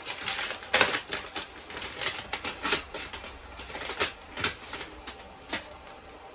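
Paper rustling and crinkling as wrapping paper is handled and a letter is unfolded: irregular crackles, several a second, dying away near the end.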